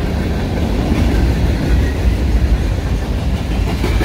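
Freight train cars rolling past at close range: a steady low rumble of wheels on the rails.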